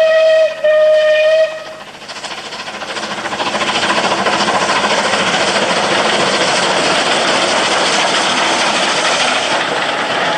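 Steam whistle of Bulleid West Country class pacific 34027 Taw Valley, a long blast with a brief break about half a second in, ending after about a second and a half. Then the locomotive's exhaust beats and the train's running noise build up loud as it climbs past.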